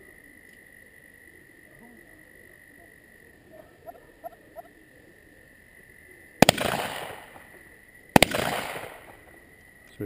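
Two shots from a .410 shotgun, about two seconds apart, each a sharp crack that dies away over about a second.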